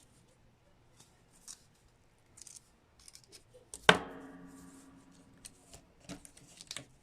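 Small clicks and handling sounds of hand-tool work on a plastic action figure, then about four seconds in a sharp metallic clink as a metal tool strikes the work surface, ringing for a couple of seconds as it fades.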